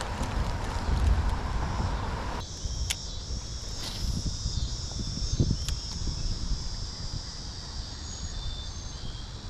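Outdoor riverside ambience: wind rumbling on the microphone over a steady hiss. About two and a half seconds in the hiss changes abruptly, leaving only a thin high band above the rumble.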